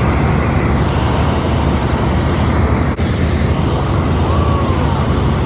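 Helicopter cabin noise: a steady loud drone of the engine and rotor. It breaks off for an instant about three seconds in.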